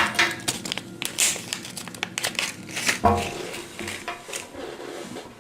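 Packaging crinkling and rustling as it is handled and unwrapped, in an irregular run of crackles.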